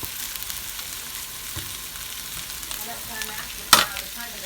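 Chicken frying in a skillet with a steady crackling sizzle. A short, loud clatter comes near the end.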